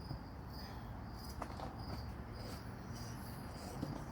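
Crickets chirping in short, repeated high-pitched pulses over a low steady hum, with a few faint clicks.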